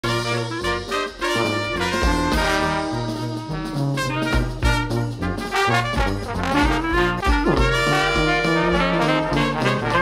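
Background music led by brass horns over a steady, regular bass line.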